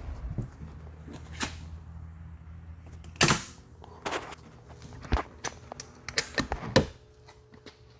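Powder-coating oven running with a low steady hum, heating primed aluminium doors, with irregular sharp clicks and knocks, one louder about three seconds in. The hum stops near the end.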